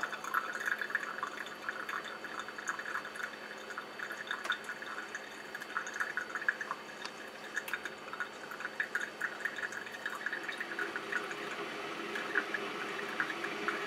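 A thin stream of coffee trickling steadily into a glass of milk, a fine, even patter of tiny drips and splashes.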